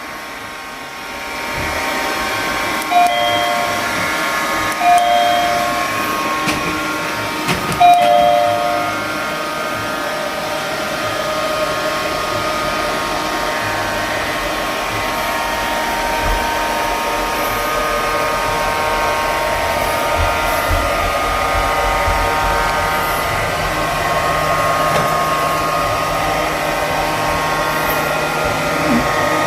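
Sapper curling robot vacuum cleaner running, a steady motor whine made of several pitched tones. A few brief tones sound in the first eight seconds.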